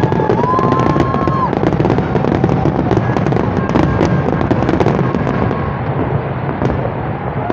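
Aerial fireworks display going off without pause: a dense run of rapid crackles, pops and bangs from glitter-star shells over steady low noise.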